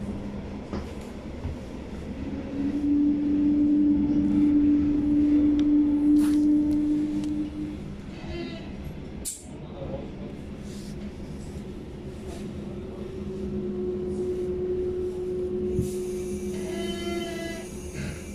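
Regional electric train running and coming into a station, heard inside the carriage: a steady rumble with a strong, steady hum from the drive that comes and goes, and a sharp click about halfway. Near the end a short pitched beeping sounds at the carriage door.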